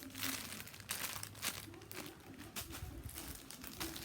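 Crinkling plastic packaging as a squishy toy is handled, a string of irregular crackles.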